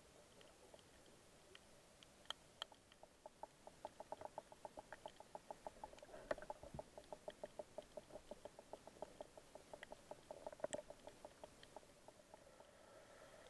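Faint underwater coral-reef sounds: a run of soft, evenly spaced clicks, about six a second, starting a few seconds in and fading near the end, with scattered sharper clicks around it.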